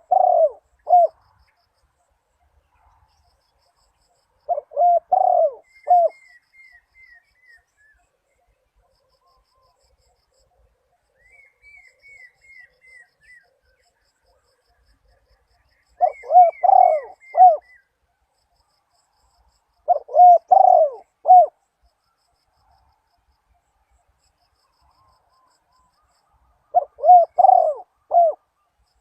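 Spotted dove cooing: five short phrases of three or four low notes each, spaced several seconds apart. A fainter run of quick, high chirps from another bird comes between some of the phrases.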